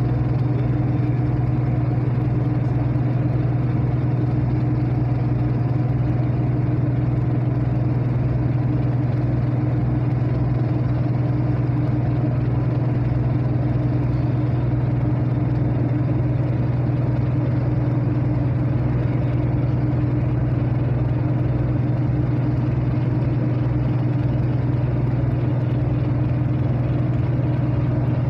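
A ship's diesel engine running steadily, heard from on board the ferry: an even, loud low hum with a steady higher tone above it, unchanging throughout.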